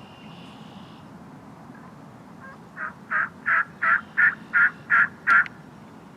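A series of eight turkey yelps at about three a second, building louder as they go, the classic hen yelping sequence.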